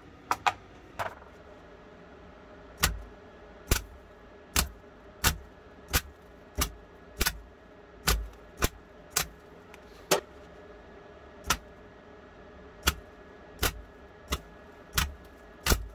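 Welder laying down short spurts of weld on a small steel pistol trigger to build up new metal: about twenty brief crackling zaps at irregular intervals, each lasting only a fraction of a second.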